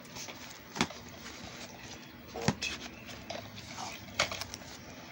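Handling a padded mailer envelope: low rustling with three sharp clicks or taps, about a second and a half apart.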